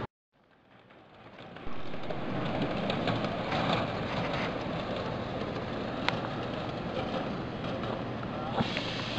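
1/8th-scale ride-on train rolling along the track: a steady rumble with a few sharp clicks. The sound cuts out at the start and fades back in within about two seconds.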